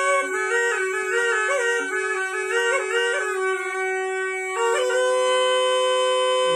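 A Rajasthani folk wind instrument playing a quick melody over a steady drone, then settling into one long held note near the end.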